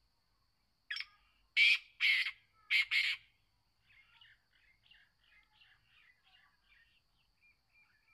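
Young male black francolin calling: one harsh, grating phrase of five notes, a short first note and then two pairs, starting about a second in. Fainter bird chirps follow.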